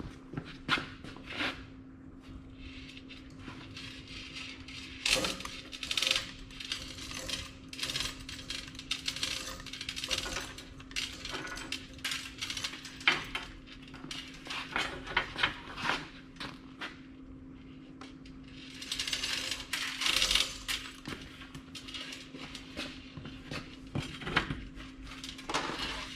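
Steel clanking and scraping, with repeated sharp knocks, as a rivet forge is lowered into its welded steel base frame and will not seat: the frame is slightly too tight.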